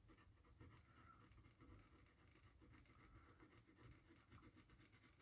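Faint scratching with scattered light clicks: tool work at an opened iPhone 6s, easing the battery off its sticky adhesive.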